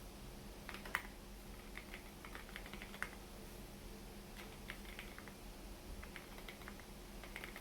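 Typing on a 65% mechanical keyboard in a Lego Technic case, with stock NovelKeys Cream linear switches mounted without a plate. Irregular runs of keystrokes, the sharpest about a second in and again at about three seconds.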